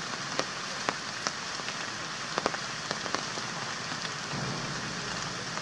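Steady rain falling, an even hiss with a few louder single drops clicking close by now and then.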